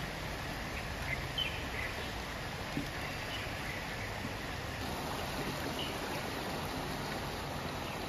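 Swollen, fast-flowing stream rushing steadily, with a constant roar of moving water.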